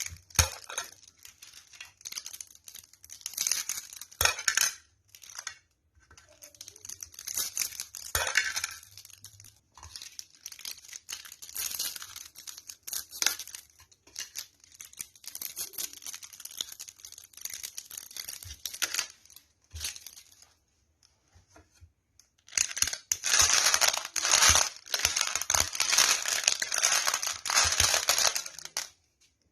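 A meat grinder crushing energy toffees: irregular crunching and crackling with sharp clicks, coming in clusters with short pauses and most intense near the end.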